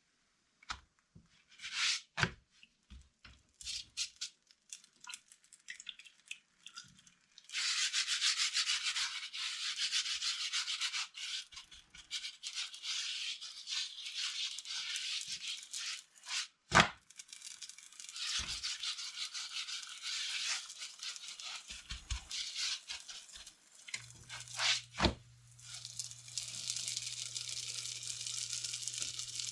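An oil roti cooking on a hot tawa: a steady hiss with rubbing and scraping, broken by a couple of sharp knocks. A low hum comes in near the end.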